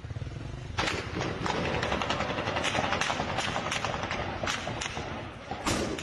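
Heavy, irregular gunfire from rifles fired in a street: about a dozen sharp shots at uneven intervals with a steady crackle between them, the loudest about a second in and near the end.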